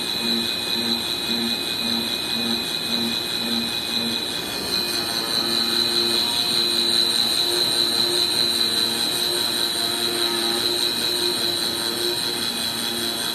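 Digital flatbed CNC cutting machine running while its tool head cuts and creases a sample in 400g E-flute corrugated board, with a steady high whine throughout. A low pulsing beat about twice a second sounds for the first few seconds, and the machine grows a little louder about four seconds in.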